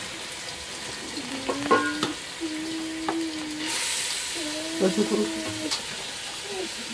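Raw chicken pieces sizzling as they are dropped into a hot pot on a small gas burner, with a brief louder hiss about four seconds in.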